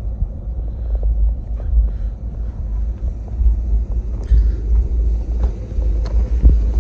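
Pickup truck idling, a low uneven rumble, with scattered faint crunching footsteps in snow; a steady engine tone comes up near the end.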